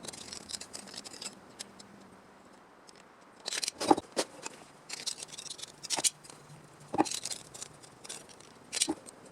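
Hand tool working sheet metal: four sharp snips or clicks at irregular intervals with lighter scraping between them, like metal shears cutting a repair panel.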